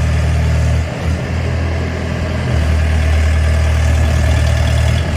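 Engine of a tracked pile driver running steadily at idle, a low hum with a brief dip in level about a second in; no hammer blows are heard.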